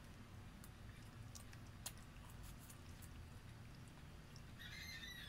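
Faint eating sounds, soft mouth clicks and smacks of chewing and sucking at food, over a low steady hum. Near the end a brief high-pitched tone sounds for about half a second.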